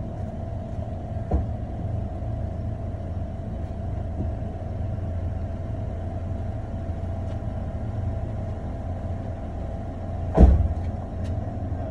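Steady low mechanical rumble with a steady mid-pitched hum above it, like a running motor. A small knock about a second in and a louder, sharper knock near the end.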